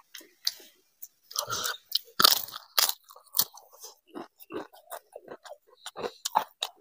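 A person chewing a mouthful of food close to a clip-on microphone, with crisp crunches that are loudest about two seconds in.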